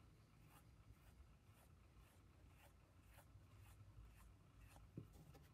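Faint, soft rubbing strokes of fingers smoothing the wall of a hand-built clay coil pot, one every half second or so, with a light tap near the end.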